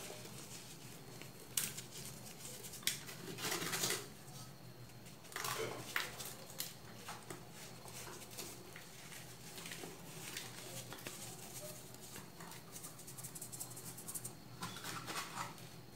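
Hands squeezing and scooping loose baking soda powder and rubbing it around baking-soda eggs in a metal pan, giving dry crunching, crackling handfuls. The loudest come in clusters a few seconds in and again near the end, with softer crackling between.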